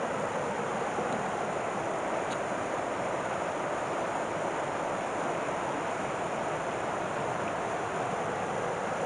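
River water rushing steadily over its bed, an even, unbroken whoosh.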